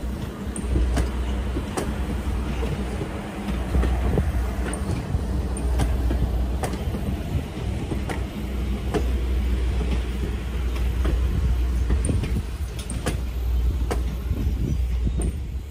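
A train rolling past close by: a steady heavy low rumble with sharp wheel clicks over the track about once a second.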